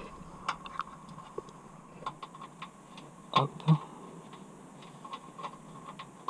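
Light clicks and taps of a plastic clip-in screw insert being pushed by hand into a slot in a car's steel chassis rail, with two louder knocks a little past halfway.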